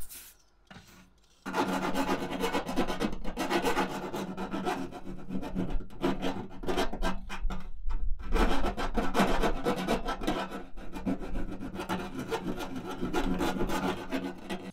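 Small hand file rasping back and forth in a freshly drilled 20 mm hole in the van's sheet-metal roof, deburring the raw edge. Rapid scraping strokes start about a second and a half in, with a brief pause around eight seconds.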